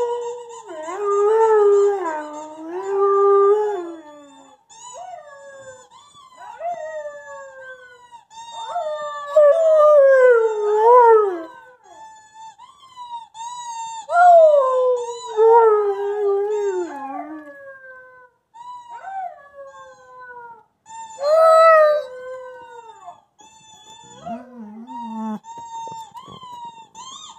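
A dog howling in about four long, loud bouts, each sliding down in pitch. Between them come fainter, higher howls from his old howling video playing on a laptop.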